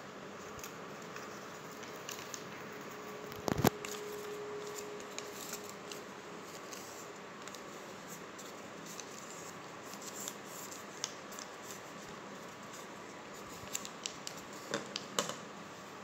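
A sheet of paper being handled and folded by hand: soft rustling and small crackles as it is creased, over a steady hiss. One loud sharp knock comes about three and a half seconds in, and a cluster of crackles comes near the end.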